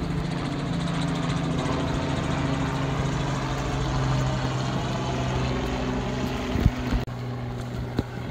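An engine running steadily with a low hum, ending abruptly about seven seconds in.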